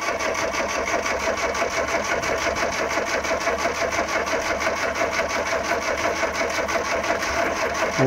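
ZAZ Slavuta four-cylinder engine turning over on the starter in a fast, even rhythm without catching. The owners suspect the spark plug leads are in the wrong firing order.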